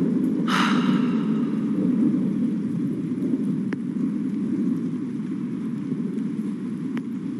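Steady rain falling, heard as an even hiss with no rhythm. About half a second in there is one short vocal sound from the man, and later a couple of faint drip-like ticks.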